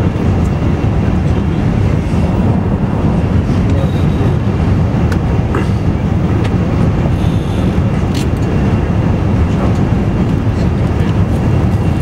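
Steady low rumble of cabin noise inside an Airbus A380 airliner on final approach, from its engines and the air rushing past the airframe.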